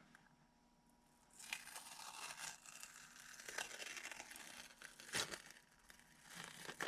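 Masking tape being peeled off a freshly painted engine and crinkled, a dry crackling rustle with a couple of sharper snaps near the end.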